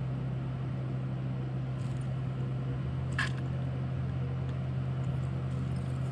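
Steady low hum with faint room noise, and a single faint click a little past the middle.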